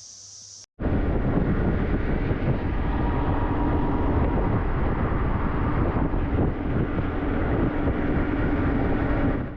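Small-displacement motorcycle being ridden: loud wind rush over the microphone with the engine running underneath. It starts abruptly a moment in and fades out at the very end.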